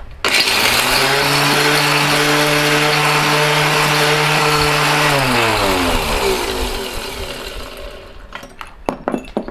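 Mighty Mill ore crusher starts with a sudden loud rattle and runs steadily, shredding a small batch of SATA power connectors. About five seconds in it is switched off and winds down, falling in pitch and fading. A few sharp knocks come near the end.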